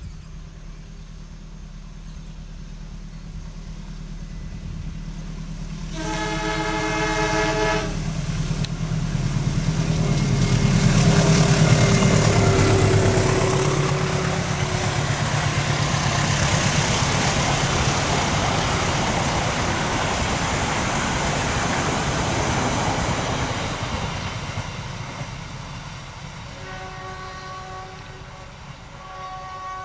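A General Electric diesel-electric locomotive hauling a passenger train approaches, its engine rumble growing until it passes about 11 seconds in, followed by the rush of the coaches' wheels on the rails as they go by and fade. About 6 seconds in the locomotive sounds a two-second horn blast of several tones at once, the warning signal for the level crossings, and a fainter horn sounds twice near the end.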